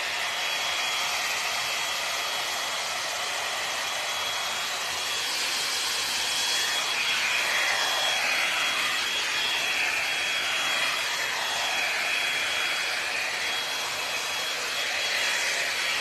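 L'ange Max Volume hot air brush blowing steadily, an even rush of air with a thin high motor whine, as it is worked through a section of hair.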